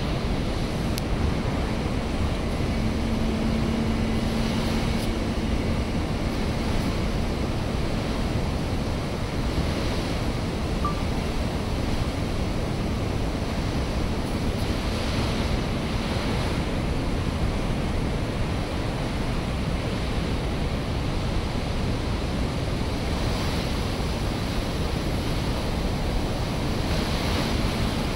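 Water pouring through an open dam spillway, a steady even rush of water.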